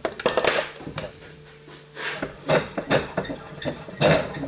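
Steel tools and auger bits clinking and clattering as they are handled, a string of sharp metallic knocks with a brief ringing about half a second in.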